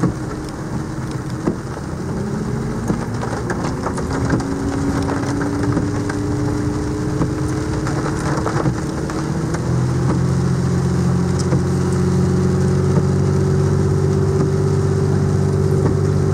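Truck engine heard from inside the cab, pulling up a muddy hill with its pitch slowly climbing, and a deeper drone growing louder about two-thirds of the way through. Heavy rain on the roof and windshield, with wipers sweeping.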